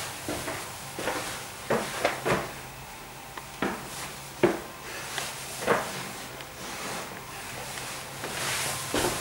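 Scattered light knocks and scuffs at irregular intervals, footsteps and camera handling noise as the camera is carried around, over a faint steady low hum.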